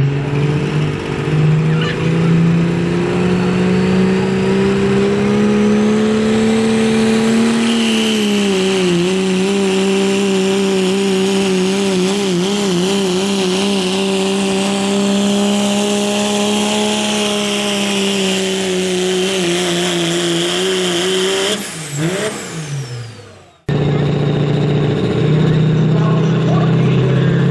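Turbo-diesel pickup truck engine held at high revs under full load while pulling a sled, with a high turbo whine rising over it. About a third of the way in the revs sag and waver, and near the end they fall away as the truck stops. After a sudden cut, another diesel pickup engine runs at a steady high idle.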